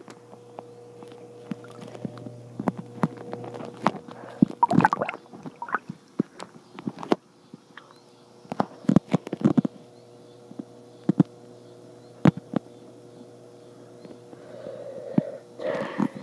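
Muffled underwater sound from a phone sealed in a waterproof case and held under hot-tub water: irregular knocks and bumps of the case, with a couple of louder watery swirls and a steady low hum underneath.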